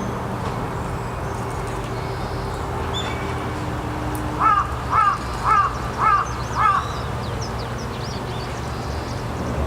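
A crow cawing five times in quick succession, about two caws a second, over a steady low background hum.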